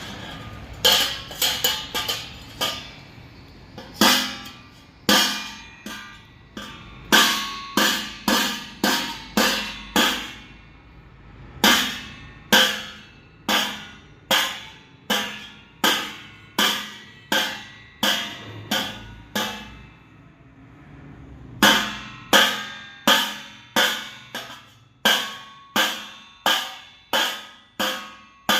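A spoon striking a steel thali plate over and over, roughly two sharp ringing clangs a second, each dying away before the next, with a couple of short pauses.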